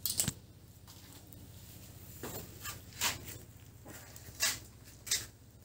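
Nylon trammel netting rustling and snapping as it is pulled taut and cut through mesh by mesh with a knife: about half a dozen short, sharp swishes, roughly a second apart.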